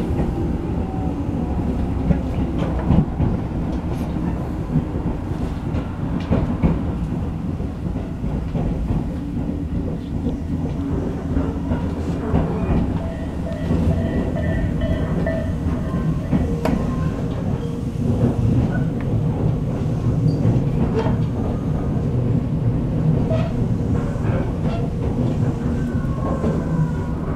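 Tobu 6050 series electric train heard from inside the passenger cabin while running: a steady rumble of wheels and running gear with the clickety-clack of rail joints. About halfway through, a level-crossing bell rings faintly as the train passes the crossing.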